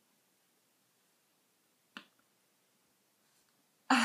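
Quiet room with a single short click about two seconds in, then a short breathy laugh that starts sharply just before the end.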